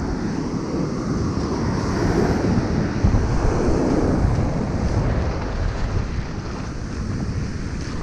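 Pacific Ocean surf breaking and washing up the sand, with heavy wind buffeting on the microphone; the wash swells louder in the middle.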